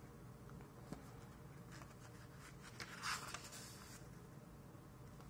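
Soft rustle and swish of paperback pages as the book is opened and leafed through, with a few light clicks of the cover; the loudest page swish comes about three seconds in.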